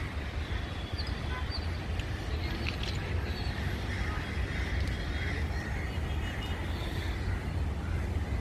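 A steady low rumble with a few short, high bird chirps scattered through it.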